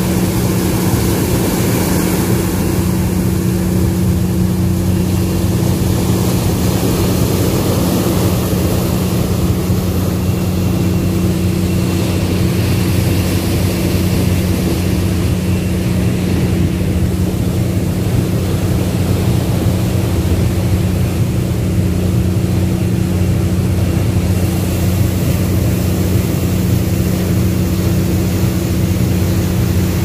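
Ship's engine and propeller running steadily, a low even hum in several tones, over the rushing of the wake churned up at the stern.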